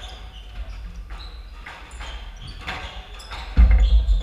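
Squash rally: sharp racket strikes and ball hits off the walls, with short high sneaker squeaks on the hardwood floor between them. About three and a half seconds in, a loud low thud stands out as the loudest sound.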